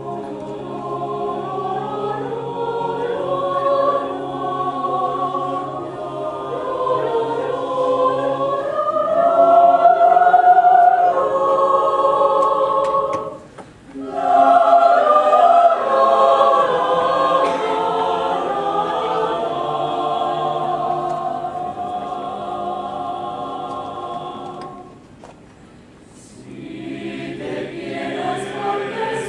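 Mixed choir of men's and women's voices singing a cappella in sustained chords, breaking off briefly twice, about halfway and again near the end.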